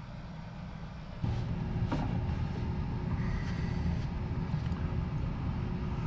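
Steady low hum of the air-conditioning running: fan motor and air moving through the ductwork, with a faint steady tone. It starts suddenly about a second in, after a quieter moment.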